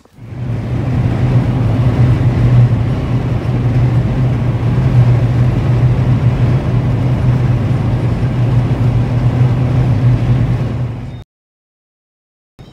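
Car driving along a highway, a loud, steady drone of engine and road noise with a low hum, which cuts off suddenly about a second and a half before the end.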